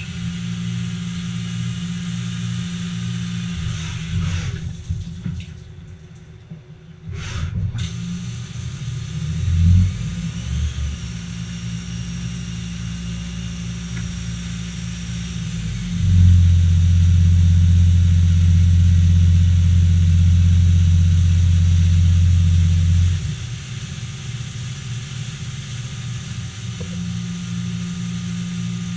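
Haas ST10 CNC lathe running its turning cycle with coolant spraying on the part: a steady low machine hum with a hiss of coolant. It drops quieter for a couple of seconds about five seconds in, and is noticeably louder for about seven seconds starting past the middle.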